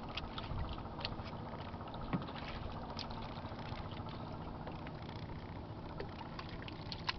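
Hands sifting and squeezing through a pile of wet river mud in the bottom of a wooden boat, searching it for shrimp: scattered small wet clicks and squelches over a steady low background noise, with a sharper click about two seconds in and another near the end.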